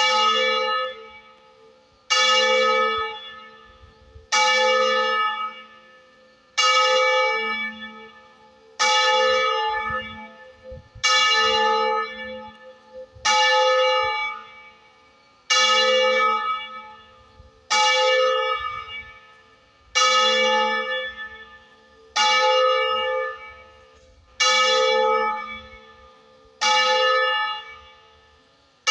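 A single church bell tolling slowly, one of the tower's three bronze bells cast in 1926. There are about thirteen evenly spaced strokes, a little over two seconds apart, each struck sharply and ringing away before the next.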